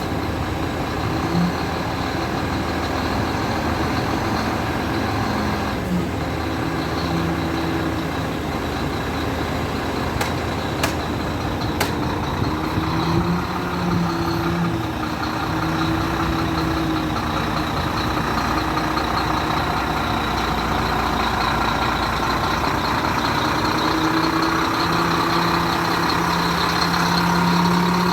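Howo 340 concrete mixer truck's diesel engine running steadily, with a droning tone that comes and goes. A few sharp clicks about ten to twelve seconds in.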